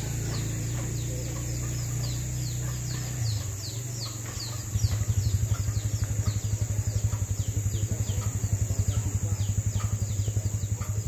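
A small engine running with a low hum, switching about five seconds in to a louder, evenly pulsing beat. Behind it are a steady high insect drone and rapid repeated high chirps.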